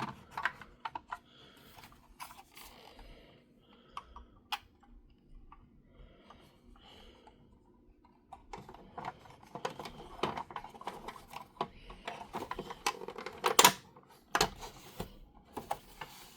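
Hard plastic parts of a toy Batmobile being handled and pressed back into line: scattered small clicks and light rubbing, sparse at first and busier in the second half, with a couple of sharper clicks near the end.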